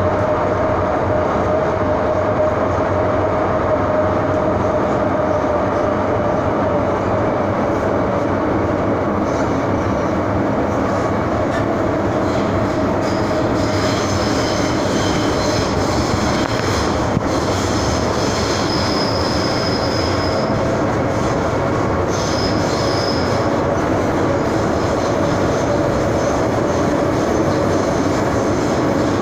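MTR M-Train electric multiple unit heard from inside the carriage while running at speed between stations: a steady rumble of wheels on rail, with a hum that slowly drops in pitch. High-pitched wheel squeal comes and goes from about nine seconds in to about twenty-four seconds in.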